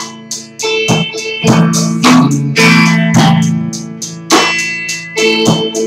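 Guitar strumming chords, a stroke every half second to a second, the chords ringing on between strokes, recorded on a cheap microphone.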